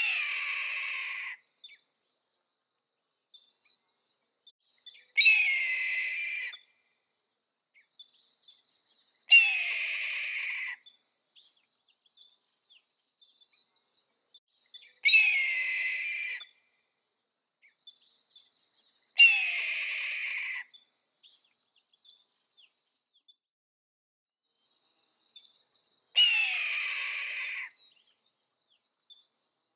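Red-tailed hawk giving its hoarse, raspy scream six times, each call about a second and a half long and several seconds apart. Each scream starts loud and slides down in pitch.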